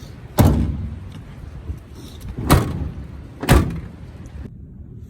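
Three loud bangs: one about half a second in, then two more a second apart past the middle, each ringing briefly.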